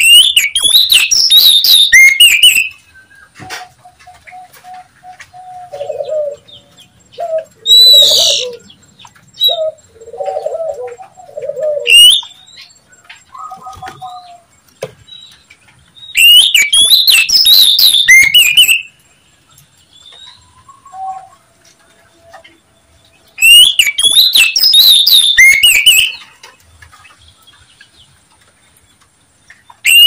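Oriental magpie-robin giving harsh, rapid chattering calls in three loud bursts of two to three seconds each. Quieter, lower bird calls come in between.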